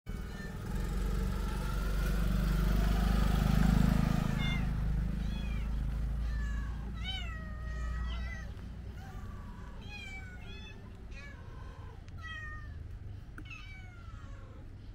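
Several street cats meowing over and over, short overlapping meows, beginning about four and a half seconds in. Before that, a loud low rumbling noise fills the first few seconds.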